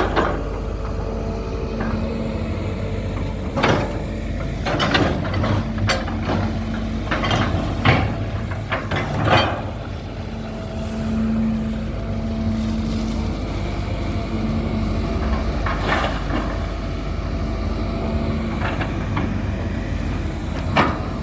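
Excavator's diesel engine running steadily under working load, with a hydraulic tone that comes and goes. About ten short clanks, scrapes and hisses come through as the arm and bucket work.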